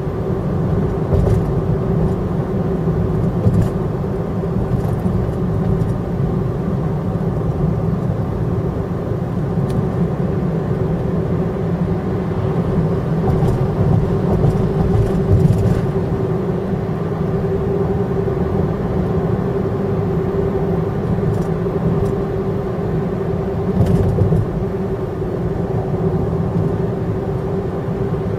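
Steady road noise inside a moving car's cabin: a low rumble of tyres and engine with a constant hum running through it.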